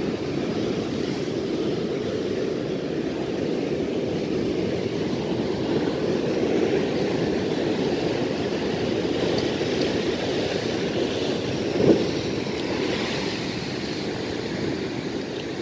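Ocean surf foaming and washing against a rock ledge: a steady rush of water, with one brief louder surge about twelve seconds in.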